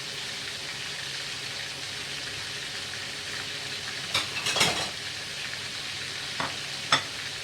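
Duck pieces frying in hot oil in a pan, a steady sizzle. About four seconds in come a few quick scrapes and clatters of a utensil against the pan, and two sharp knocks near the end.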